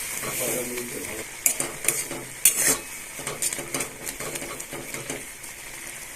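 A spoon stirring soupy Maggi noodles in a kadai, clinking and scraping against the pan at irregular moments, over the steady hiss of the simmering broth.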